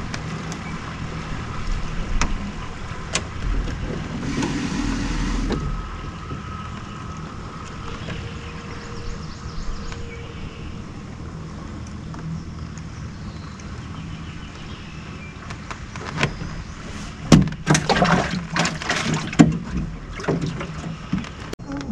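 A steady low hum on a small fishing boat, with a short hiss about four seconds in and a run of sharp knocks and clatter near the end.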